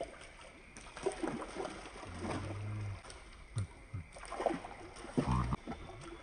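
Pond water sloshing and splashing as a man wades through it, in irregular bursts with a few sharper splashes.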